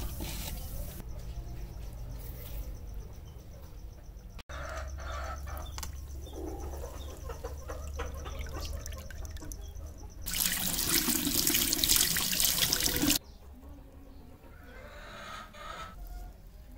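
Liquid fizzing and bubbling in a plastic tub where a cloth-wrapped rusty chisel soaks in a rust-removal bath, then about ten seconds in a loud rush of splashing, dripping liquid lasting about three seconds and stopping abruptly.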